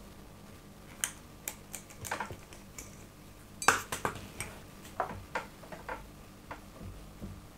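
Hands working the wire cage and cork on the neck of a sparkling wine bottle before it is opened: scattered small clicks, crinkles and scrapes, coming thicker in the second half.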